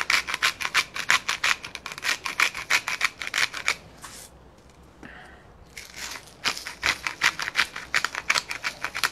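Hand-twisted salt grinder crushing coarse salt: a rapid run of ratcheting clicks, about six a second, that stops for about two seconds midway and then starts again.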